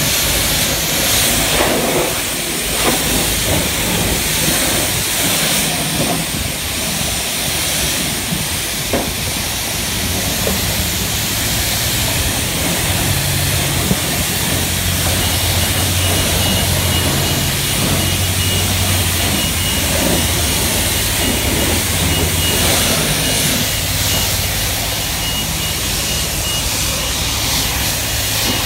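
High-pressure car-wash spray wand blasting water onto a pickup truck's body, a loud steady hiss of spray. About twelve seconds in a low hum joins underneath, and a faint thin high whine is heard from about fifteen seconds.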